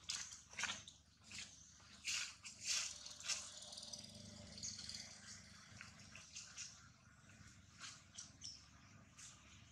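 A long-tailed macaque eating a piece of food: faint, irregular crunching and crackling clicks as it chews, busiest in the first few seconds.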